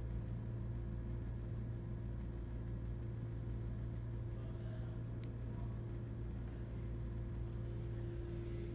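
Steady low machine hum over a low rumble, holding two even tones.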